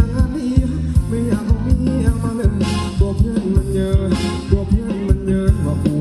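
Thai ramwong dance music from a live band, with a steady drum beat and bass line under melodic lines.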